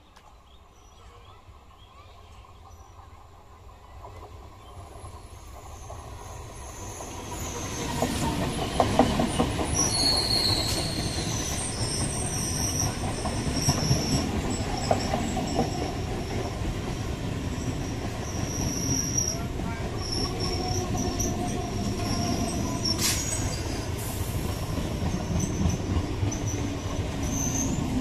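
Electric multiple-unit (EMU) suburban train approaching and passing close by at speed. It grows louder over the first eight seconds, then comes a steady rumble and rattle of wheels on rail with a high wheel squeal and a few sharp knocks as the coaches go by.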